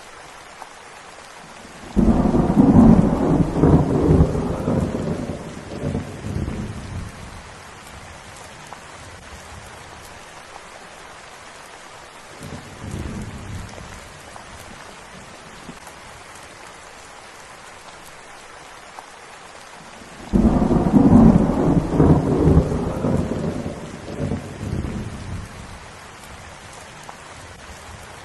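Steady rain falling, with two loud rolls of thunder that each break in suddenly and rumble away over several seconds, and a fainter rumble between them.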